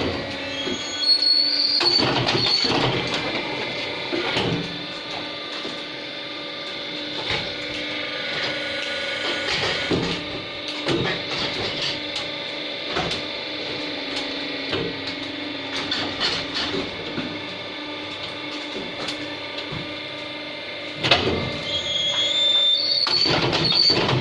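Automatic plastic moulding machine for gallon caps running: a steady hum and whine with irregular clanks and clicks, and brief high whistling squeals near the start and again near the end.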